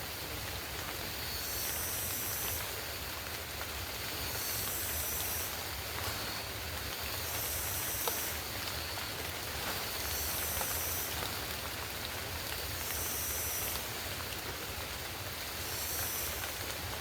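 Steady rain falling, an even hiss of drops. Over it comes a high buzzing that swells and fades about every second and a half.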